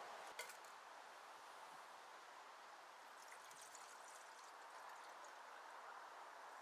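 Near silence: a faint, steady background hiss with a soft click about half a second in and a few faint ticks near the middle.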